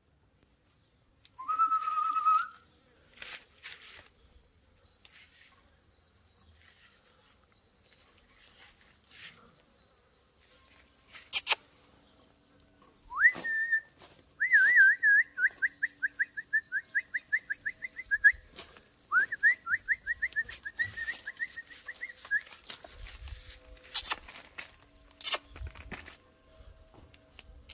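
A person whistling: a short rising whistle about a second and a half in, then a long warbling, trilled whistle from about thirteen seconds, repeated after a short break. A few sharp clicks fall in between.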